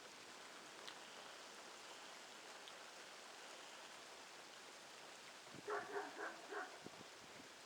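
Steady patter of rain. Near the end a Newfoundland dog barks four times in quick succession from across the street.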